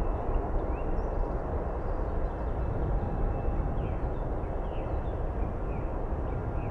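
Boeing 777 twin-engine airliner climbing out after takeoff: a steady, low jet-engine rumble, with a few short high chirps over it.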